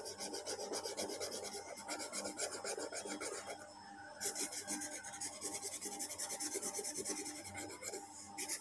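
Green felt-tip sketch pen scratching across thick card in quick back-and-forth strokes while colouring in, with a short pause near the middle.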